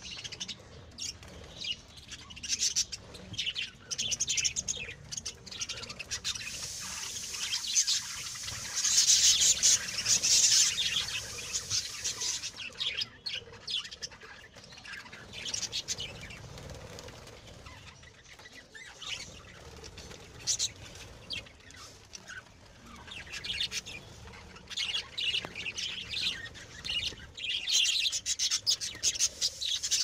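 A flock of caged zebra finches calling: many short, rapid chirps overlapping, busiest and loudest about eight to eleven seconds in and again near the end.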